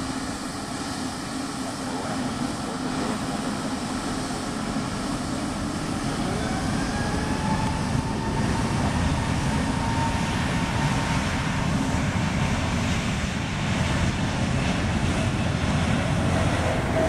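Jet engines of taxiing airliners, a LATAM Airbus A320neo and a nearer Aerolíneas Argentinas Boeing 737 MAX, running with a steady engine roar. A faint whine rises in pitch about six seconds in, and the engine noise grows louder from about eight seconds on.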